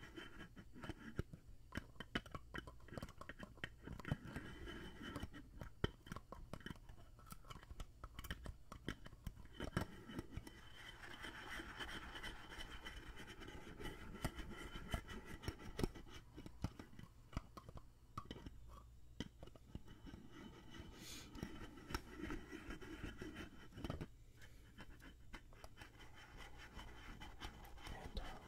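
Fingernails tapping and scratching on a small black container held right up to a condenser microphone: dense, irregular clicks mixed with soft scrapes, as ASMR trigger sounds.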